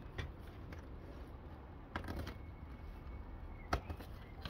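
Plastic stretch wrap and tape crinkling and rustling as they are pulled and torn off a wrapped machine, with a few sharp crackles, the loudest near the end.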